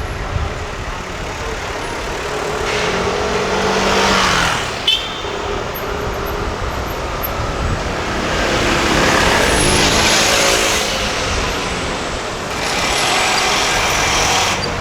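Street traffic: three vehicles pass close by one after another, each rising and fading with the hum of its engine over a steady traffic rumble. A single sharp click about five seconds in.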